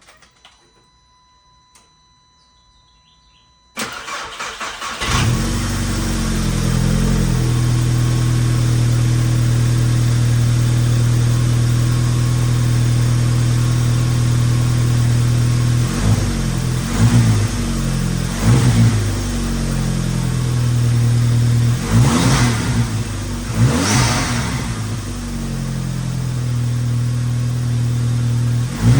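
A 2006 VW GTI's turbocharged 2.0-litre four-cylinder cranks and starts about four seconds in, flares up and settles into a steady idle. It is then blipped several times in the second half. It runs smoothly, with no misfire, now that the vacuum leak has been capped.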